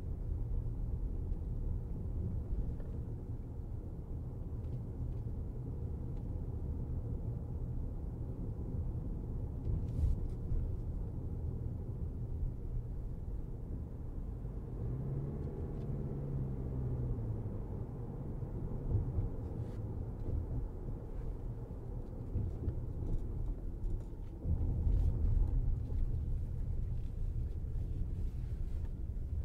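2023 Toyota RAV4 driving: a steady low rumble of tyres and road, with the engine note rising and falling for a couple of seconds about halfway through. A few faint clicks sound, and the rumble grows louder near the end.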